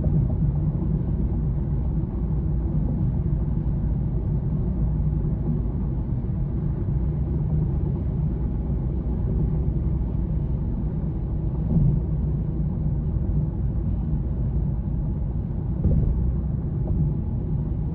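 Steady low rumble of road traffic, with two brief louder swells in the second half.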